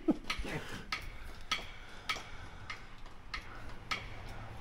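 Porta-power hydraulic hand pump being worked stroke by stroke, a sharp click about every 0.6 s. A low steady hum comes in near the end.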